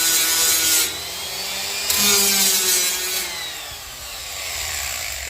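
Cordless die grinder whining at high speed as it grinds black walnut wood, shaping a spoon. The grinding noise eases about a second in, is heavy again around two seconds in, and the motor's pitch drifts in the last couple of seconds.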